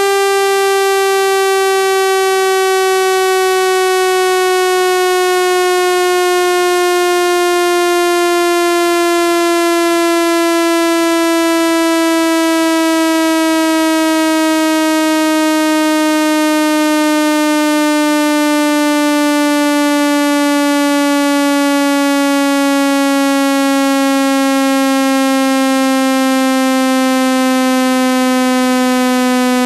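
Electronically generated speaker-cleaning tone: a loud, steady, buzzy tone with many overtones, sliding slowly and evenly down in pitch. It is made to set a phone speaker vibrating so that trapped water is pushed out.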